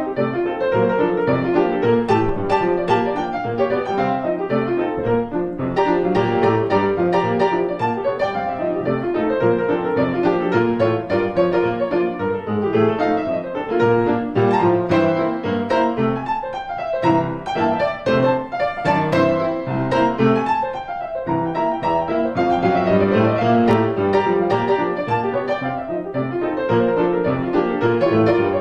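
Piano music playing quick, busy runs of notes.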